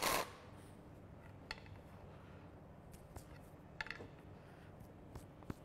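A brief burst from a cordless driver turning a socket on a bolt of a tractor's cast-iron hydraulic top cover, then a few faint scattered metallic clicks and clinks of tools and parts, with a small cluster a little before four seconds in.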